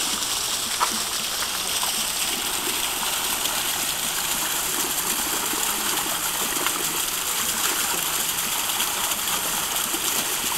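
Steady rush of running water from a natural spring.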